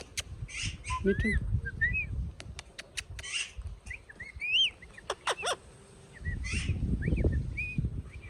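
Green parrot making short whistled chirps that rise and fall, mixed with sharp clicks and a few noisy, hissing screeches.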